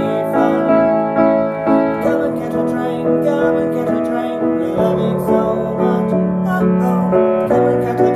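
A woman singing her own song with piano accompaniment.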